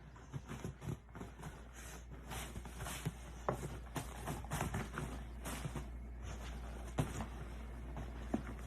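A pet moving about: irregular light clicks, taps and scrapes over a low steady hum.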